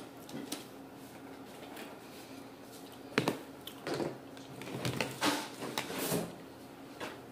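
A clear plastic sushi takeout tray and a fork being handled, giving a few short clicks and knocks from about three seconds in, after a stretch of low room noise.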